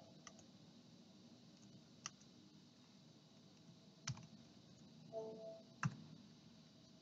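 Near silence with four faint single clicks at a computer, spaced about two seconds apart, and a brief faint hum about five seconds in.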